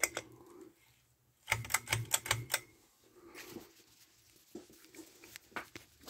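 A quick run of six or seven sharp clicks about a second and a half in, with a single click at the start and scattered softer knocks and rustling around them.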